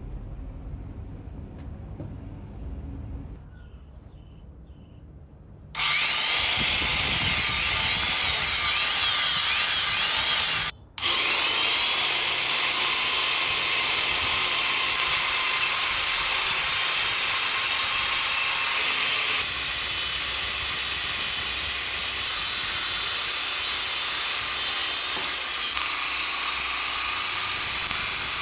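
Vintage Black and Decker electric reciprocating saw starting up about six seconds in and running steadily with a high motor whine, its blade sawing through a metal rod held in a vise. The sound stops for an instant near the middle, and gets a little quieter later on.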